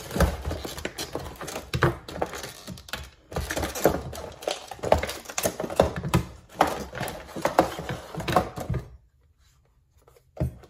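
Clear plastic bag and paper packaging crinkling and rustling as a handheld OBD2 scanner and its cables are unpacked. Irregular clicks and light knocks of the plastic unit and cable plugs on a wooden table run through it, stopping about nine seconds in.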